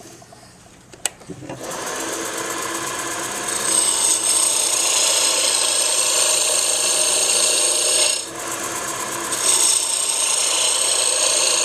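Roughing gouge cutting a spinning wood blank on a lathe, shaping a taper: after a single click, a steady cutting noise starts about two seconds in and grows louder, breaks off briefly just past the middle, then resumes.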